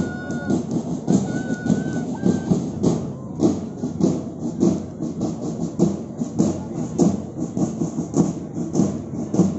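March music with a steady drum beat of about two beats a second, keeping time for the marching contingents; a high steady tone sounds a few times in the first two and a half seconds.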